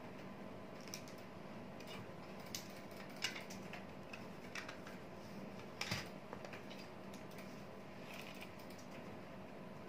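Scattered light clicks and taps of small makeup items being picked up and handled on a table, the loudest cluster about six seconds in, over a faint steady hum.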